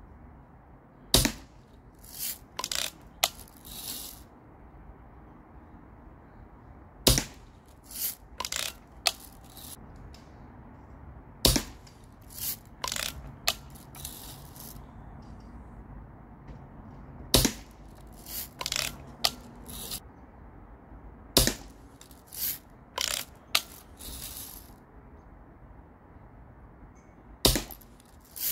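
Daisy Red Ryder spring-piston lever-action BB gun fired six times, several seconds apart. Each sharp shot is followed by a short run of clicks and clacks as the lever is worked to cock it for the next shot.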